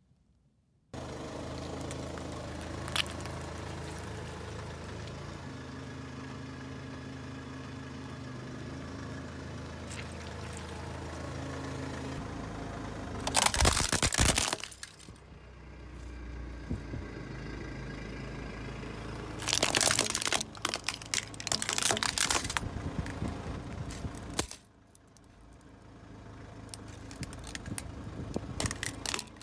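A car tyre rolling over and crushing plastic toy vehicles. Loud cracking and crunching of plastic comes about thirteen seconds in and again from about twenty seconds in, over the steady sound of the car's engine running.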